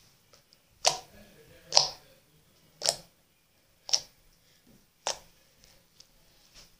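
Fingertips poking clear-glue slime, each poke giving a sharp pop or click, about once a second, five strong pops and a fainter one near the end.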